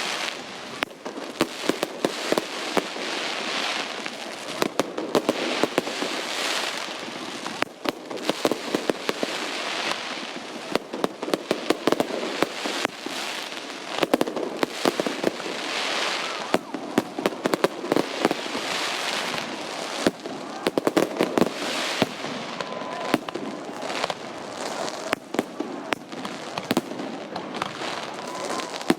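Fireworks display: a rapid, unbroken barrage of sharp bangs with crackling between them.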